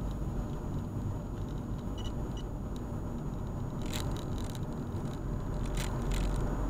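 Steady low road and engine rumble of a moving car, heard inside the cabin, with a faint steady high whine and a few sharp clicks about four and six seconds in.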